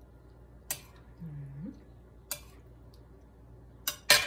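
A spoon clinking against plates while food is served, a few sharp clinks with the loudest near the end. A short, rising hummed "mm" about a second in.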